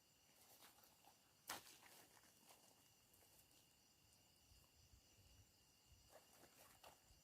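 Near silence with faint, steady night insects trilling, a single sharp click about a second and a half in, and soft rustles.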